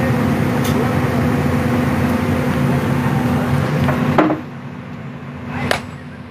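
Digger engine running steadily with a low held tone. About four seconds in a sharp knock comes and the engine sound drops noticeably; a second knock follows near the end.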